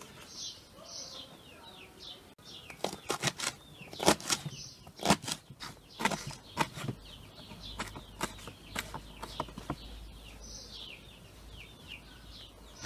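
Kitchen knife chopping fresh herbs on a wooden cutting board: a run of quick, uneven knocks through the middle that stops a few seconds before the end. Small birds chirp now and then.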